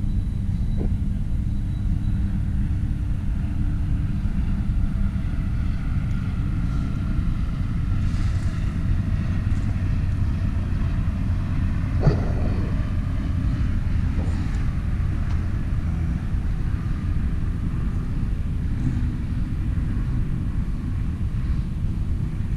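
Car driving: a steady rumble of engine and road noise, with a single sharp knock about twelve seconds in.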